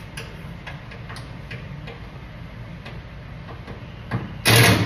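A handheld power tool runs in one short burst near the end, fastening hardware during assembly of the truck hood. Under it is a steady shop hum with faint ticks about twice a second.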